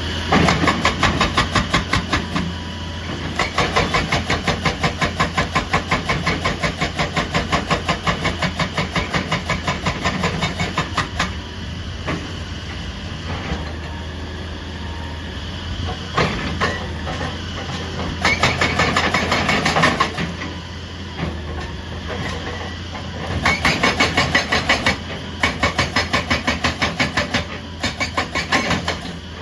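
Excavator-mounted hydraulic breaker hammering, in several bursts of rapid, evenly spaced blows separated by pauses, over the steady running of the excavator's engine.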